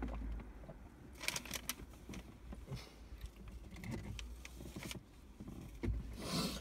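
Faint scattered clicks and crinkles of a plastic water bottle and food being handled, with a small cluster of clicks a little over a second in and a short rustle near the end.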